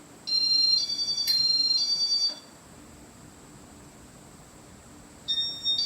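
High-pitched electronic warbling tones: a few notes alternating between two pitches for about two seconds, then a second run near the end, over a faint steady hum.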